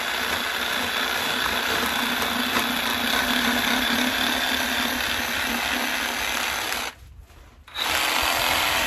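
Cordless reciprocating saw running steadily as its blade cuts into the head of a bluefin tuna. About seven seconds in the saw stops for just under a second, then starts again.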